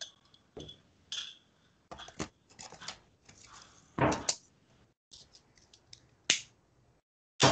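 Darts striking a bristle dartboard, as separate sharp knocks with smaller clicks of handling between them; the loudest knocks come about four seconds in and just after six seconds.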